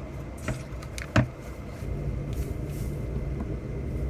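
A few light clicks and knocks as sugar is added to a bowl of batter mix, over a steady low rumble.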